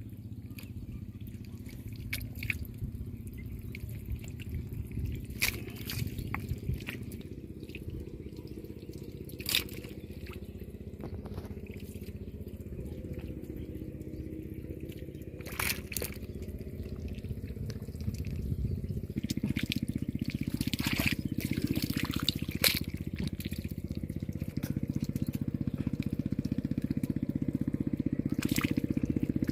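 Wet mud squelching and water dripping and splashing as hands grope through a drained pond bed for fish, with scattered sharp splats. A steady low drone runs underneath and grows a little louder about two-thirds of the way through.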